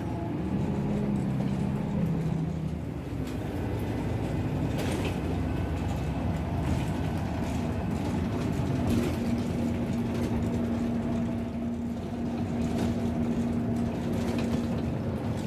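City bus in motion heard from inside the cabin: steady engine and road rumble, with a faint steady hum that comes up about nine seconds in.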